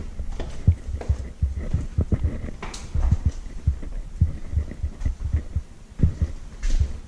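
Footsteps and handling thumps from a handheld camera being carried through a building: irregular low thudding, several knocks a second, with a few sharper clicks and scrapes.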